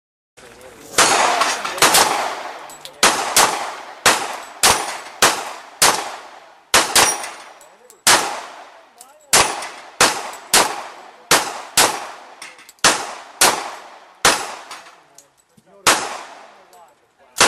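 Rapid gunfire at steel plate targets: about two dozen sharp shots in quick, uneven succession, each followed by a ringing, echoing tail.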